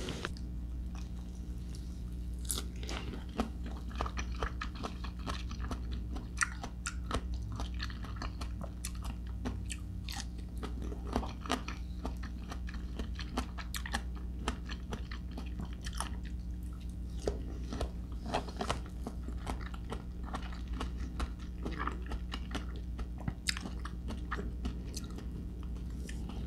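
Close-miked chewing and biting of slices of crisp-type persimmon, slightly softened by ripeness, with short wet crunches and crackles scattered all through.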